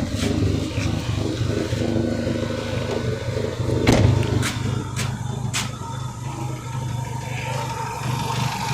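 Renault Mégane II engine idling unevenly with a misfire and a slight shake, which the owner suspects comes from worn spark plugs. A few sharp clicks are heard between about four and six seconds in.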